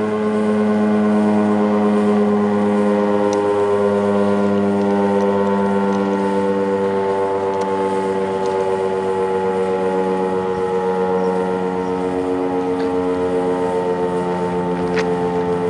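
Federal Signal STH-10A outdoor warning siren sounding a held two-tone chord at high speed, its pitch wavering slightly.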